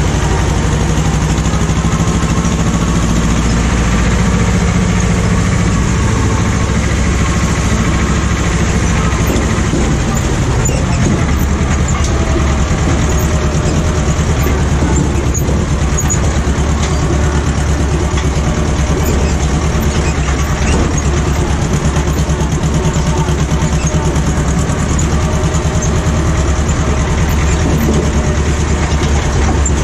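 Ursus C-330M tractor's two-cylinder diesel engine running steadily under load, pulling a trailer full of earth. Its note changes about ten seconds in, then settles.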